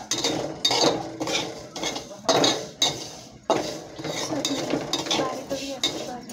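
A flat metal spatula scrapes and stirs sesame seeds around a metal kadhai as they dry-roast, in repeated sharp strokes about one or two a second.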